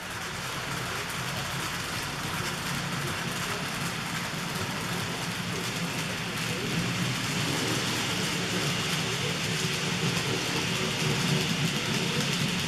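N-gauge model trains running on the layout, a Fleischmann class 151 electric locomotive hauling a rake of Arnold bogie tank wagons past: a steady motor hum with a fine clatter of wheels on the rails.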